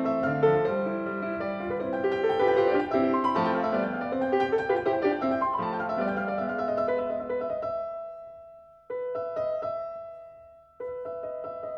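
Background piano music. The notes die away and the music cuts back in abruptly twice, about nine seconds in and again shortly before the end.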